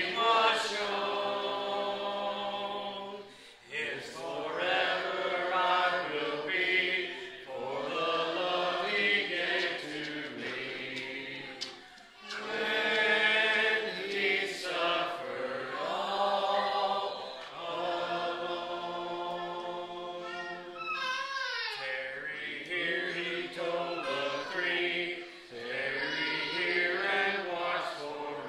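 Church congregation singing a hymn a cappella, with no instruments. The phrases are of held notes, with short breaks between them about 3.5, 12 and 21 seconds in.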